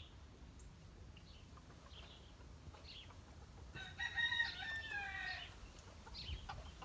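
A single drawn-out animal call about four seconds in, lasting about a second and a half and dipping in pitch at the end, over faint outdoor background.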